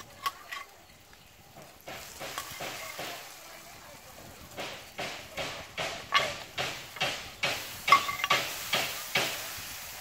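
A metal spoon stirring and scraping through spice paste frying in a metal wok, with sizzling. A few sharp metal clinks come at the start, then the scraping strokes grow stronger and settle at about three a second.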